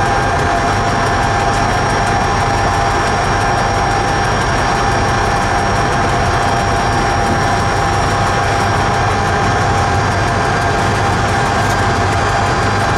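Electric train running steadily through a railway tunnel: an even rumble of wheels on rail with a steady whine over it, the noise closed in by the tunnel.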